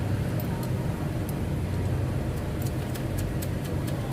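A steady low engine hum, like an idling vehicle, with scattered light clicks, more of them in the second half.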